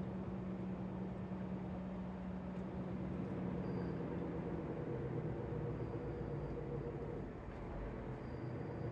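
Lorry's diesel engine running steadily under road noise, heard from inside the cab while driving at town speed; it eases off slightly about seven seconds in.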